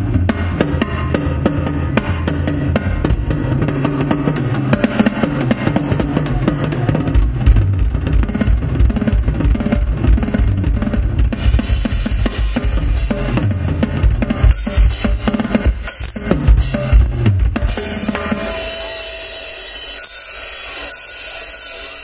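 Live drum solo on an acoustic rock drum kit: fast, dense bass drum, snare and tom rolls, with cymbal crashes growing heavier in the second half. The drumming stops about eighteen seconds in, leaving a steady hiss.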